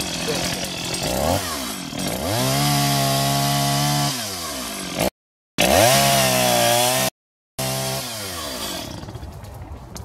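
Chainsaw revving up to full throttle and cutting through a felled tree trunk, its pitch dipping and climbing again as it works, then dropping back toward idle near the end. The sound cuts out completely twice, for about half a second each time.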